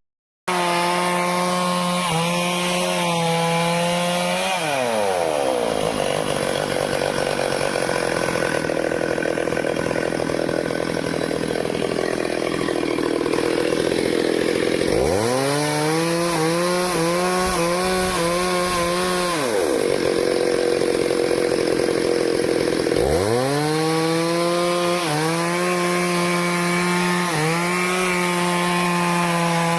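Stihl chainsaw cutting into a teak tree. The engine runs at high revs, then its pitch falls steeply as the chain bites and the saw labours in the cut with a rough sawing noise. Twice it revs back up to a high, slightly wavering whine before dropping into the wood again.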